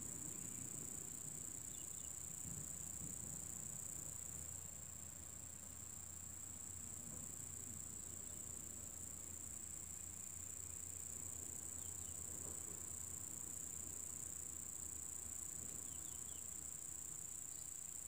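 Insect chorus, such as crickets, giving a steady high-pitched drone, with a few faint brief chirps over it.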